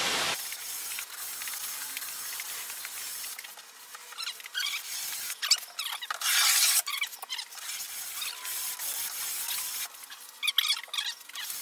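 100-grit sandpaper rubbed by hand along the rounded edge of a mahogany plank, in uneven short strokes with a few sharper, higher scrapes.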